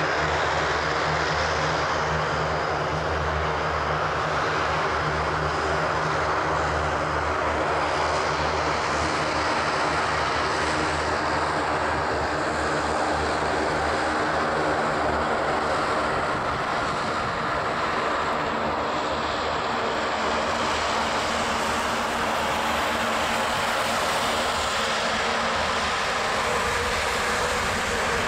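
Steady jet noise from the Rolls-Royce engines of a Boeing 777-200ER on final approach and landing. A deep engine hum underneath fades after about halfway, while the broad roar carries on.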